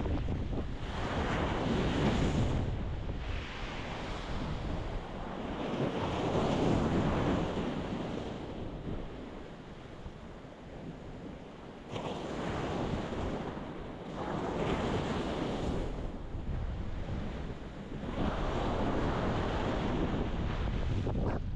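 Ocean waves breaking on a rocky shore, surging in one after another every few seconds, with a quieter lull about halfway through.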